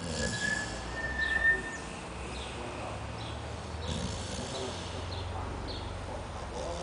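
Faint bird chirps, short high calls about a second apart, over the low, steady breathing of a sleeping pit bull. A thin, high, steady tone sounds three times in the first two seconds.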